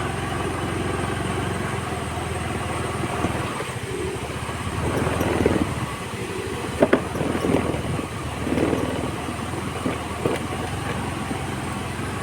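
Yamaha Ray ZR scooter's single-cylinder engine running as it rides over a rough, muddy dirt track, with a few sharp knocks, the loudest about seven seconds in.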